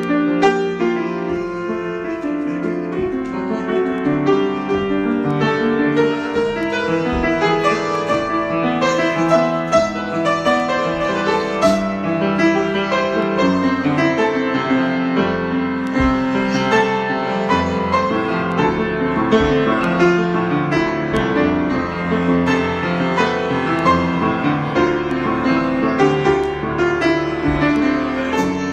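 Piano playing an improvisation, many notes sounding together and running on without a break.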